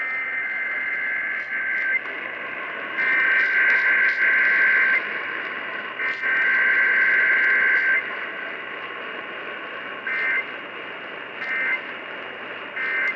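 Emergency Alert System SAME data bursts received over a hissing radio. Three two-tone header bursts of about two seconds each come first, then three short end-of-message bursts near the end.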